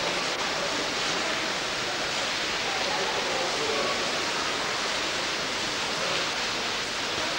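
Steady, even hiss of background noise on an old camcorder recording, with a faint murmur of distant voices underneath.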